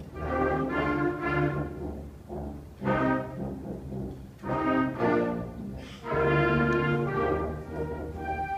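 School concert band of woodwinds and brass, trombones among them, playing a piece in phrases that swell and fall back.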